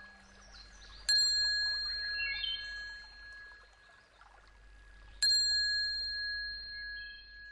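A small metal bell struck twice, about four seconds apart; each strike rings on in a few high, clear tones that slowly fade. Faint short chirps sound between the strikes.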